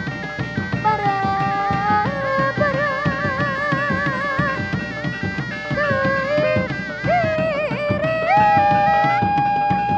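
Live Sundanese Reog Dog Dog ensemble music: quick hand-drum strokes under a wavering melody line with wide vibrato, which settles on a long held note near the end.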